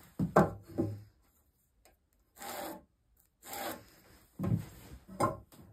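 A steel square shifted on a rough-sawn spruce board, and a line scraped across the wood along its edge to mark the cut to length: a few short scratchy strokes with quiet gaps between.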